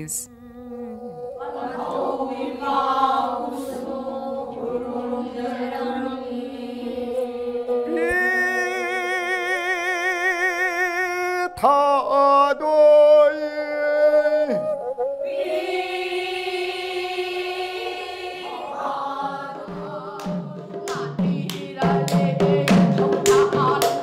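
Pena, the Manipuri bowed monochord fiddle with a coconut-shell body, played in long wavering held notes, with singing. Near the end, sharp hand-drum strokes come in.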